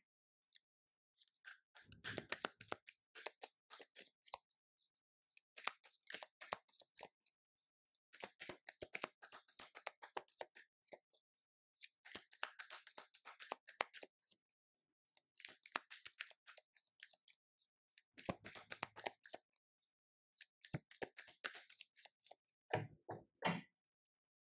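Tarot deck being shuffled by hand: repeated bursts of card-on-card rustling and flicking, about eight shuffles each lasting a second or two with short pauses between.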